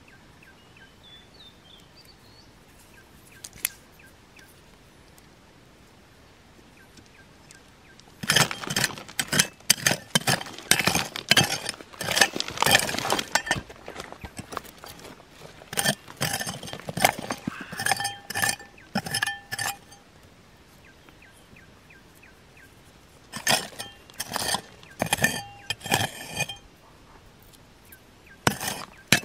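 Rapid clinking and clattering of hard objects knocking together, with a faint ringing after some strikes. It starts about eight seconds in and runs for about twelve seconds, pauses, comes back in a shorter burst about two-thirds through, and ends with a few last clinks.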